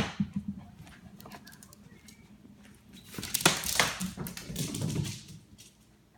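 A dog playing with a soccer ball: a sharp knock at the very start, then a louder noisy stretch of dog sounds and scuffling about halfway through that dies away near the end.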